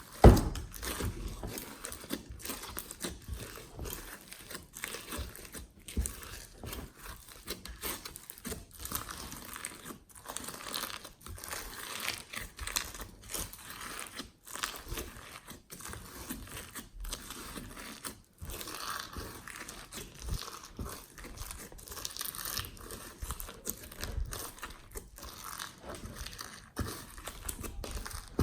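Hands kneading and squishing glossy slime, giving a continual run of irregular crackles and clicks, with one sharp loud snap just after the start.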